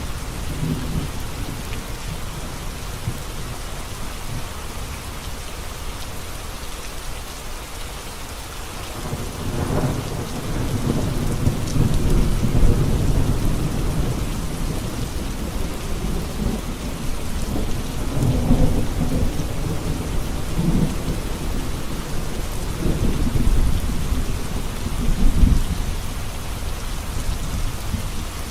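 Heavy rain falling steadily on a road, with low rolling rumbles of thunder that swell about nine seconds in and come and go after that.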